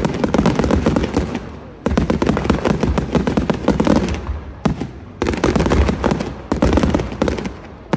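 Aerial fireworks display: a dense barrage of shell bursts, bangs and crackling, in several runs that each start abruptly.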